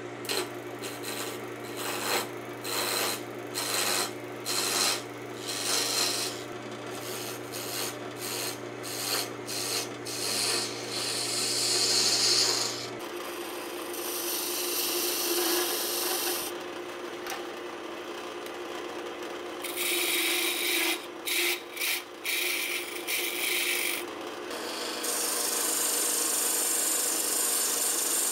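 Wood lathe running with a steady motor hum while a turning chisel cuts into a spinning hard maple blank, a scraping, rasping chip-cutting sound. The cuts come in many short strokes at first and become one longer continuous cut near the end.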